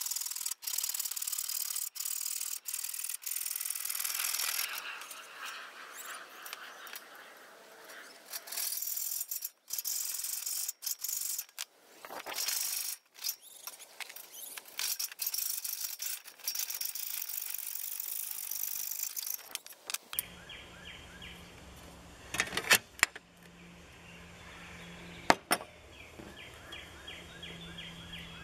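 A hacksaw cuts through aluminium trim with a rasping, squealing noise. The strokes come in runs with short pauses and stop after about twenty seconds. Then a quieter stretch follows, with birds chirping, a low hum and a few sharp clicks.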